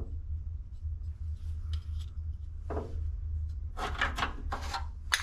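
Scattered rustling and a few light knocks from a person handling parts, with a cluster of sharper rustles about four seconds in and a click near the end, over a steady low hum.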